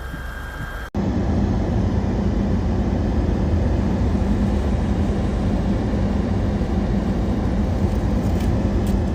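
Steady rumble of a running vehicle, with a low hum under dense noise; it starts abruptly about a second in.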